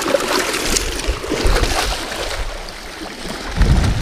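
Lake water splashing and sloshing close by, with many small splashes. Near the end, wind buffets the microphone with a low rumble.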